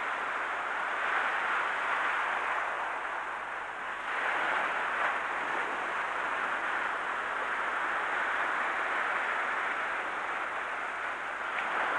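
Small sea waves breaking and washing up a beach: a steady hiss of surf that swells about four seconds in and again near the end.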